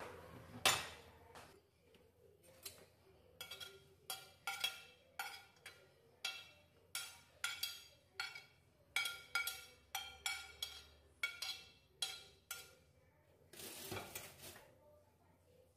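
Glass pot lid clinking on its pan in a run of short, sharp, ringing clinks, roughly two a second, as steam from the boiling broth lifts it. There is a louder knock near the start and a brief burst of noise near the end.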